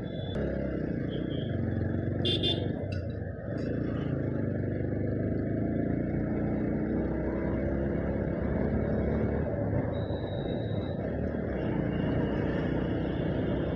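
Motorcycle ride through town traffic: the bike's engine running with road and wind noise, and other motorbikes and vehicles around. A short high beep sounds about two seconds in.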